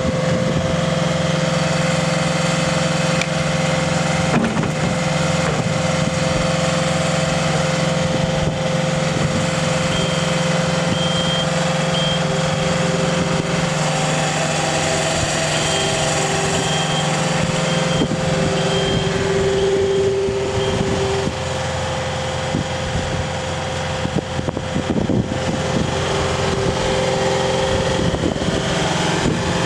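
Kubota SSV75 skid steer's diesel engine running steadily, with a higher whine that comes and goes through the middle.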